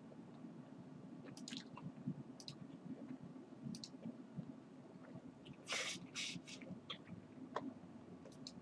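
Low steady room hum with a few soft scattered clicks and rustles, and a short, louder scuffling noise about six seconds in.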